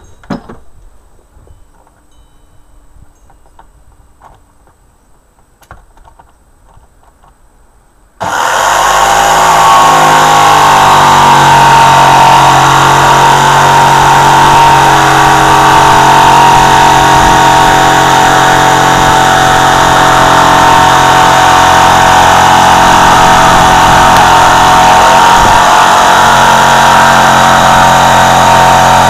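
A corded electric jigsaw starts suddenly about eight seconds in and then runs steadily while cutting, a loud, even motor whine. Before it there are only a few faint knocks.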